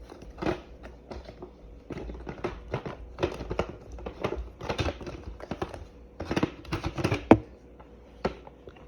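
Irregular plastic clicks, knocks and rattles as the dirt canister and filter assembly of a Bissell PowerForce Compact Turbo bagless upright vacuum is worked open by hand, with one sharper knock about seven seconds in.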